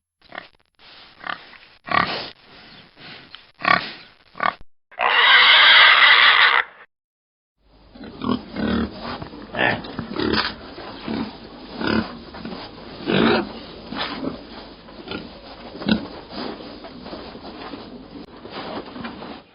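Pigs grunting in short separate grunts, broken about five seconds in by one loud squeal lasting nearly two seconds. After a brief silence, a pig grunts every half second to a second over a steady background.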